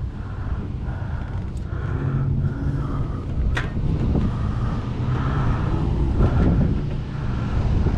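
Engine running steadily with a low hum that swells a little partway through.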